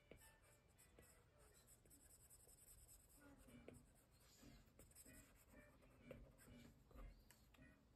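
Faint tapping and scratching of a stylus tip on an iPad's glass screen as sketch lines are drawn, in scattered short strokes.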